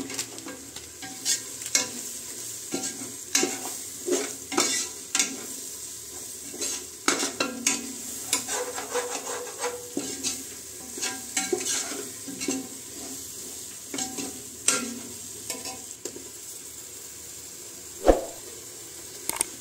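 A metal spoon stirring and scraping chicken biryani masala in an aluminium pressure cooker, in irregular strokes with clinks against the pot, over the steady sizzle of the frying masala. A sharp metal knock on the pot near the end.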